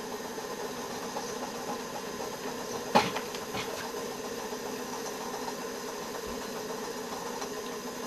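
PM Research 6CI model steam engine running steadily on steam, with one sharp click about three seconds in.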